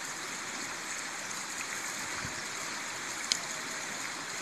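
Shallow river water flowing steadily over stones, an even rushing hiss. A single sharp click stands out about three seconds in.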